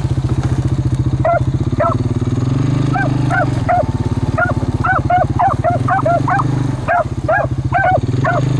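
Beagles barking in short repeated barks, sparse at first and coming thick and fast from about three seconds in, over the steady low drone of a running vehicle engine.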